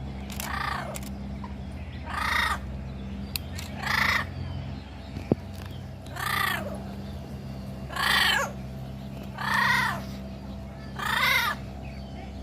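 A parrot giving repeated harsh squawks, about seven in all, one every couple of seconds, over a steady low hum. There is a single sharp click about five seconds in.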